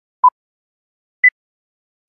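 Film-leader countdown beeps: a short electronic beep about a quarter second in, then one higher-pitched beep about a second later, marking the end of the countdown.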